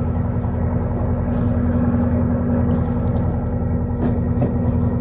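Boat engine running steadily, a constant low drone with an even hum.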